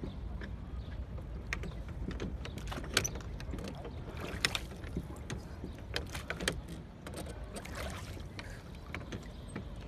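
A small rowboat being rowed with wooden oars: irregular sharp knocks of the oars in their oarlocks and splashes as the blades dip, over a steady low rumble.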